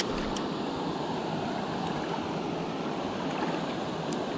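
Shallow water sloshing steadily around the legs of a person wading through it.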